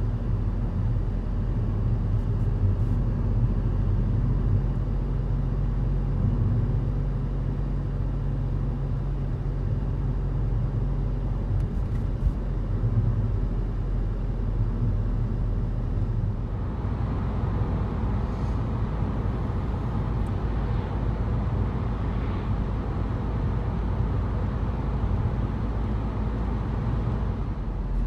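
Road noise inside a moving car: a steady low rumble of engine and tyres. A higher tyre-and-wind hiss comes in about halfway through.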